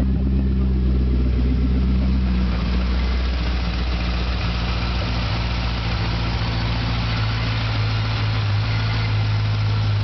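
Modified Chevrolet Corvette Z06's 7.0-litre LS7 V8 idling steadily. Its sound shifts about two to three seconds in as it is heard first from beside the rear of the car, then from over the open engine bay.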